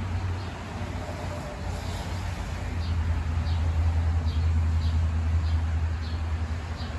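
Steady low rumble of passing road traffic that swells and eases, with a small bird chirping over it, one short falling chirp about every three-quarters of a second.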